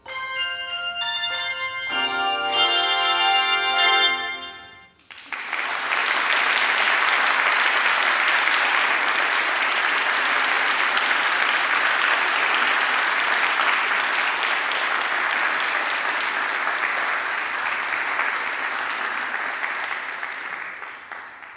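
Handbells ringing the closing chords: one chord, then a louder, fuller chord about two seconds in that dies away about five seconds in. An audience then applauds steadily, fading near the end.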